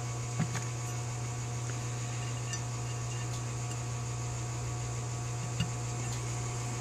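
Steady low hum in a small room, with two faint light clicks of small metal carburetor parts being handled, one about half a second in and one near the end.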